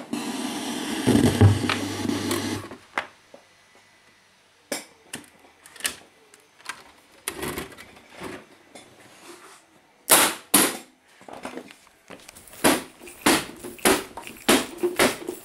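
Hiss and mains hum from an Arrow EQ1800 stereo graphic equalizer, cut off abruptly about three seconds in. Then scattered handling clicks and knocks, with a quicker run of steps and knocks near the end.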